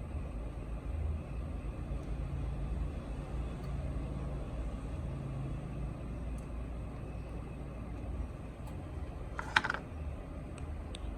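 A steady low hum, with one sharp click about three-quarters of the way through and a couple of faint ticks after it.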